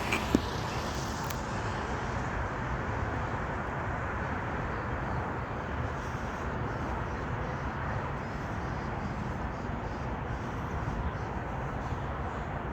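Steady outdoor background noise, an even low rumble and hiss, with a single sharp click about a third of a second in. No siren tone is sounding yet.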